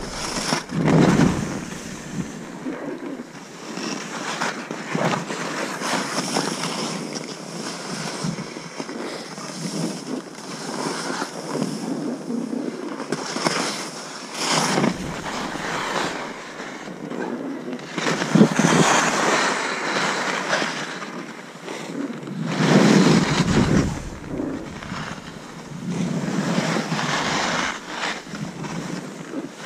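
Skis hissing through soft snow on a descent, swelling every few seconds with each turn, with wind buffeting the microphone now and then.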